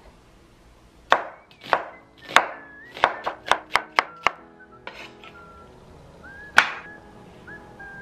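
Chef's knife slicing an onion on a wooden cutting board: a run of sharp chops that quickens to about four a second around three to four seconds in, then one more chop later.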